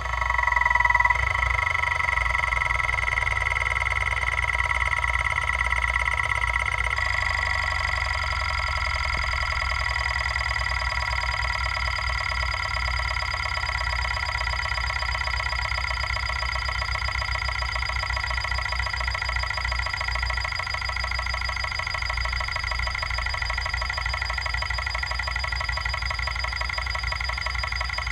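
Kalok KL-320 MFM hard drive running a seek test: the head actuator stepping rapidly in a dense buzzing rattle over a steady high whine. Its tone changes about seven seconds in. The drive is badly damaged, a broken-off head having been removed by cutting off the top arm, and it runs on three heads.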